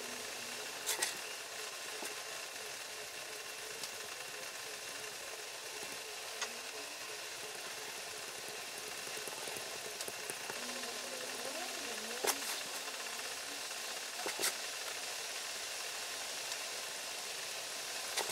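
Wire-tip pyrography pen burning into pine wood: a faint steady sizzle, broken by a few sharp clicks.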